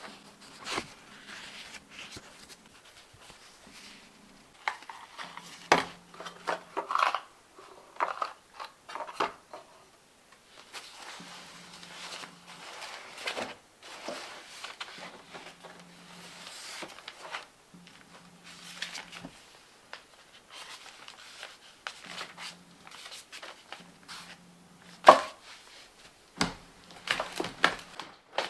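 Scattered clicks, knocks and scrapes from hands-on work, at irregular times, with one sharp knock about 25 seconds in standing out as the loudest.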